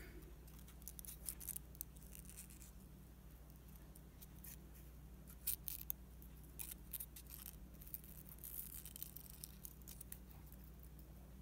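Small craft scissors making faint, irregular snips through paper, trimming a small cut-out shape.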